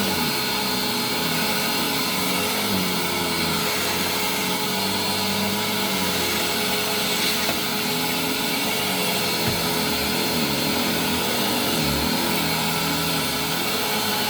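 Hoover WindTunnel upright vacuum running steadily with a vintage Eureka power nozzle attached, motor whining over a constant rush of suction air, with a low hum that wavers as the nozzle is worked over carpet.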